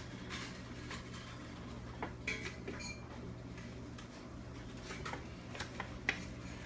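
Faint scattered clicks and rustles over a low steady hum: paper tickets being drawn by hand from a trophy cup.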